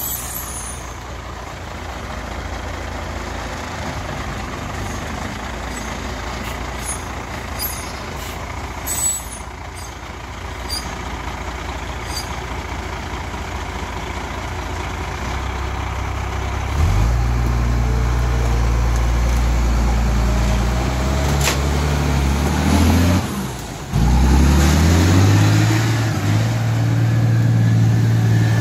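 Mercedes-Benz truck's diesel engine labouring through mud: running steadily at first, then revving hard about two-thirds in, dropping off briefly and revving up again near the end.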